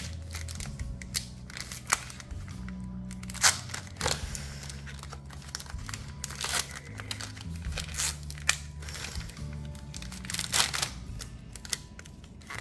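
Foil wrapper of a Pokémon TCG booster pack crinkling and tearing in a string of short, sharp crackles, over soft background music with sustained low notes.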